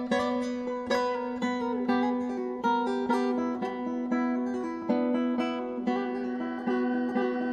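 Plucked strings playing a quick melodic figure of sharply picked, decaying notes over a held low note, in an ensemble piece built on a Balkan-style 9/8 + 7/8 meter.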